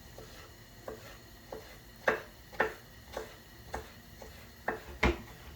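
Knife chopping on a wooden cutting board: a steady run of sharp knocks, about two a second.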